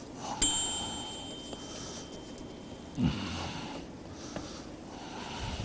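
Quiet room tone with a faint steady high-pitched tone for about two and a half seconds. There are two short breathy sounds from a person, one about three seconds in and one near the end.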